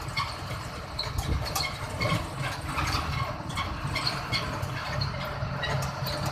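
Engine and road noise of a vehicle driving along a highway: a steady low rumble with scattered light rattles and clicks.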